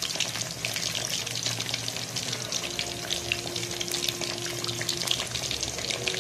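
Marinated fish shallow-frying in hot oil: a steady sizzle with dense, fast crackling pops.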